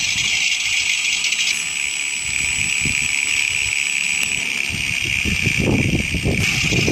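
Sound effect of a Cessna light propeller plane: a steady, loud engine-and-propeller hiss with an uneven low rumble underneath.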